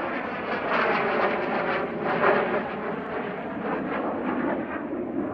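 Cessna A-37B Dragonfly's twin General Electric J85 turbojets in flight: a steady broad jet rush with a faint held whine, growing louder about a second in and peaking a little after two seconds.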